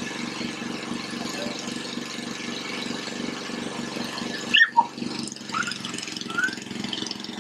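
Small gasoline push lawn mower engine running steadily. About four and a half seconds in, a toddler gives a few short high squeals over it.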